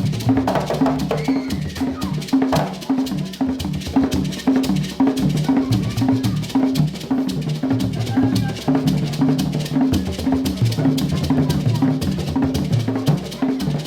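Traditional Ugandan percussion music: a fast, steady run of wooden-sounding strikes over a repeating figure of low pitched notes, played without a break.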